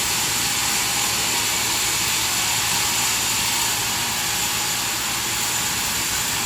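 Sawmill machinery running steadily: an even, loud hiss with thin high-pitched whines over it.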